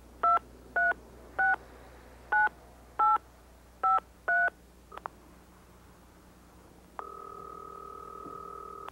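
Touch-tone payphone being dialled: seven short two-tone keypad beeps, one per key press, over about four and a half seconds. A click follows about five seconds in, and about seven seconds in a steady tone comes on the line and holds for about two seconds.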